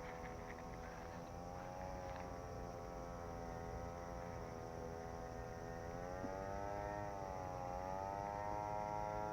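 A motor humming steadily, its pitch wavering slowly and rising a little and getting slightly louder in the second half.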